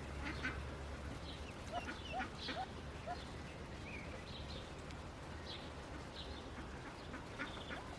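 Newly hatched Indian Runner ducklings peeping: scattered short, high calls, with a quick run of several rising chirps a couple of seconds in.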